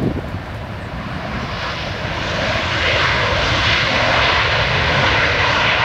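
Airbus A320 jet engines on the landing roll, their roar building about two seconds in and then holding loud and steady, typical of reverse thrust being applied after touchdown.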